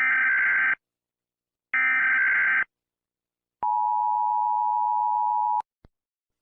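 Emergency Alert System signalling tones: two short, buzzy, screeching digital data bursts about a second each, then a steady two-tone attention signal lasting about two seconds that cuts off suddenly.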